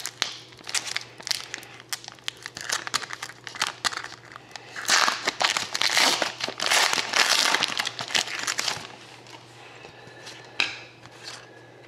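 Plastic and foil packaging of a hockey card box and its packs being torn open and crinkled by hand, in irregular bursts that are densest about five to nine seconds in.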